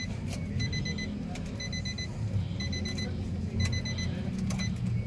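Car warning chime beeping in quick groups of about four short beeps, one group roughly every second, with the ignition switched on. A low steady hum runs underneath.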